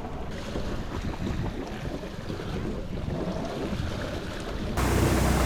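Wind buffeting the microphone over water rushing and sloshing past a sailboat's hull under way at sea. Near the end the sound cuts abruptly to a louder, steadier hiss with a low hum.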